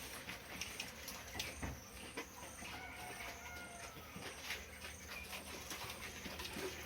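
Pigs in their pen: many scattered clicks and knocks as they move about, with a faint, brief call about three seconds in.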